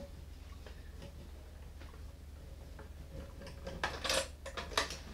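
A few light metallic clinks and knocks from the motorcycle's front end being handled, mostly in the last second and a half, over a faint low hum.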